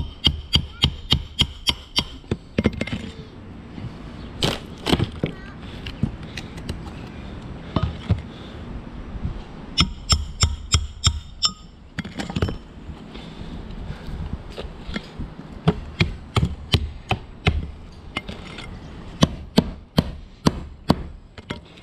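Hatchet hammer and pry bar chopping and prying at the two-layer wood roof decking to enlarge a vent hole: repeated sharp wooden knocks and cracks, in quick runs of a few strikes a second with short pauses between.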